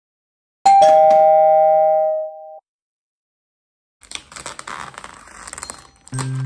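Two-note ding-dong doorbell chime, a higher note then a lower one, ringing for about two seconds. After a pause there is a stretch of crackling and rustling, and music comes in near the end.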